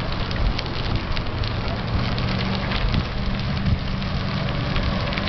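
Bicycle tyres rolling over a crushed-stone trail: a steady crunching crackle with many small clicks, over a low rumble.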